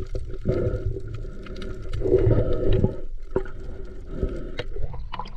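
Seawater sloshing and gurgling close to the microphone, with scattered small knocks and clicks; it swells louder about two seconds in.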